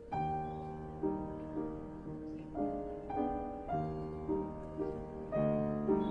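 Background piano music: a gentle melody of notes struck about every half second, each ringing and fading.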